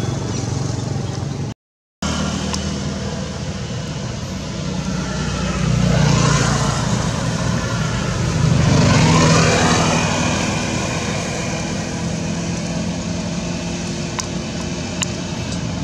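Motor traffic: a steady engine hum, with two vehicles passing that swell up and fade away, one about six seconds in and another about nine seconds in. The sound cuts out completely for a moment early on.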